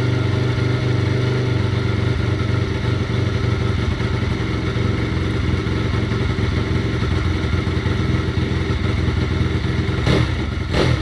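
Small single-cylinder four-stroke 150 YX dirt bike engine running steadily, with two short louder bursts near the end. It has just been started after new valve stem seals and a timing reset, and the owner takes its even running as a sign that the cam timing is set right.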